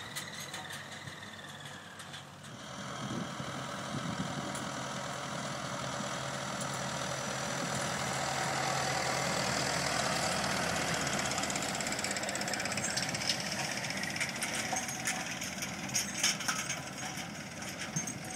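John Deere tractor running as it pulls a Duncan Renovator seeder across dry ground, getting louder to a peak about halfway through as it passes close, then fading as it moves off, with a few sharp clicks.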